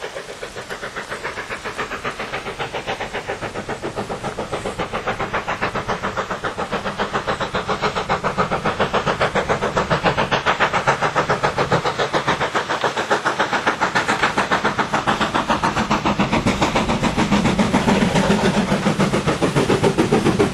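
Southern Railway U class two-cylinder 2-6-0 steam locomotive No. 1638 working hard up a steep bank, its exhaust beats coming in a rapid, even rhythm. The beats grow steadily louder as the engine approaches and draws level near the end.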